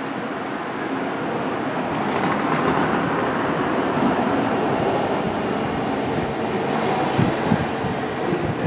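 Train running on rails: a steady rumble of wheels and cars, with a short high squeak about half a second in.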